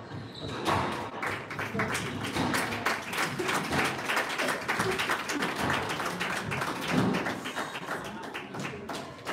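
Squash rally: the ball striking rackets and the court walls, with quick footsteps tapping on the hardwood floor.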